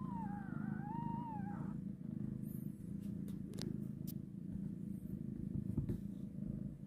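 Mother cat purring steadily while her newborn kittens nurse. A newborn kitten gives one thin, wavering mew, rising and falling in pitch, in the first two seconds.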